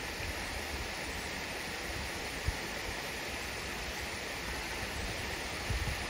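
Waterfall stream rushing over rocks: a steady hiss of running water, with one brief low bump about halfway through.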